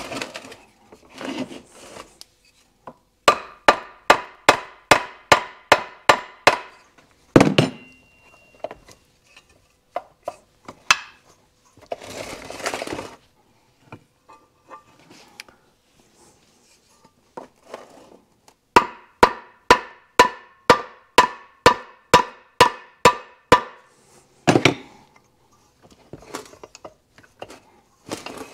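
Plastic hammer tapping on a Kawasaki F7 175 engine's crankcase to drive the two case halves apart past their dowel pins. Two runs of quick, even taps, about three a second, each with a short ring, start about three seconds in and again near the middle, with a heavier single knock and handling clatter between.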